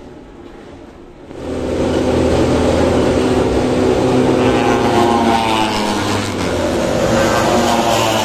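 Racing motorcycle engines on the track, loud from about a second in, with the pitch rising and falling as bikes go by.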